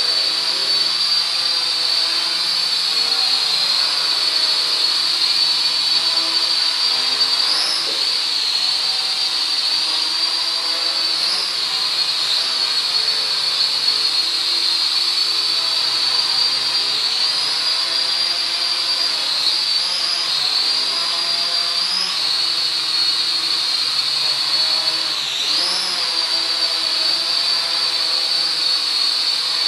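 Zero-X Pulse mini quadcopter's motors and propellers whining steadily at a high pitch in flight, the pitch dipping briefly and recovering a few times.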